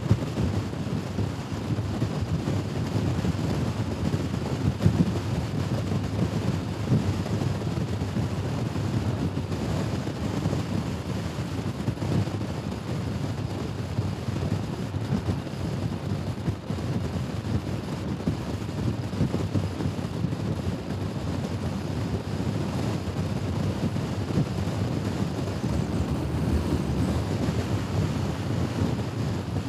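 Steady low wind rush over the microphone of a Honda Forza scooter riding along, with the scooter's running and road noise underneath.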